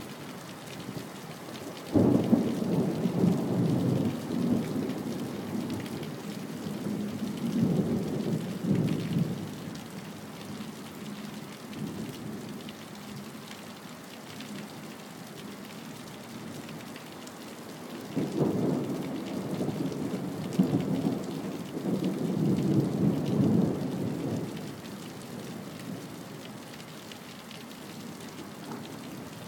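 Steady rain with thunder: a sudden rumble about two seconds in that rolls on for a few seconds, a second swell soon after, and two more rolling rumbles in the last third.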